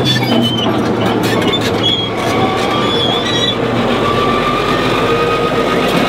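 Caterpillar D9H bulldozer crawling on its steel tracks: the diesel engine runs steadily under the clanking of the track links, with short high squeals coming and going from the tracks.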